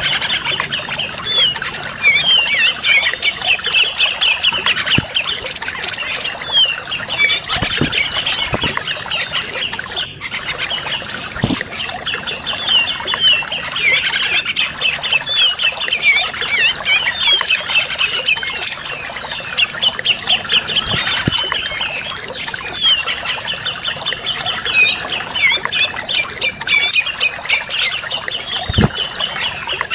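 Bird-lure recording of grey-cheeked bulbuls (cucak jenggot), several birds giving fast, harsh chattering calls in bursts that come and go every few seconds, almost without pause.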